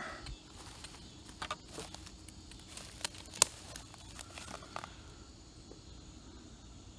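A few sharp clicks and light rustling over a quiet background hiss, with the loudest click about three and a half seconds in.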